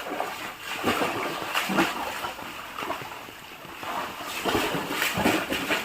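Water splashing and spattering in irregular bursts as a pet plays in the rain.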